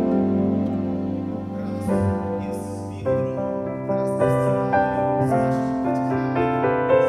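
Soft instrumental background music led by piano, with new notes coming in about once a second.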